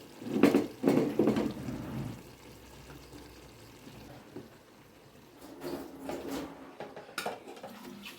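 Cooking pot and utensils clattering, loudest in a burst of knocks in the first two seconds, with fainter knocks later.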